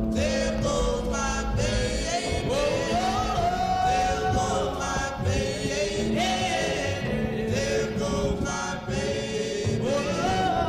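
A song: sung vocals holding and sliding between long notes over a steady low bass line.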